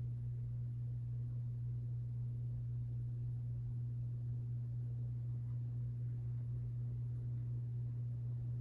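Hampton Bay Edgemont 52-inch ceiling fan running steadily, its motor giving a constant low hum.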